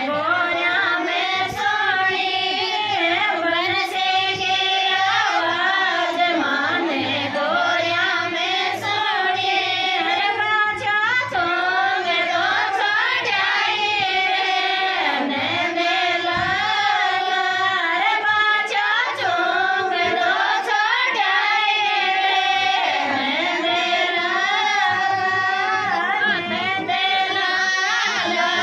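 Women singing a Krishna bhajan in Rajasthani folk style into handheld microphones, in continuous sung lines with a bending, ornamented melody.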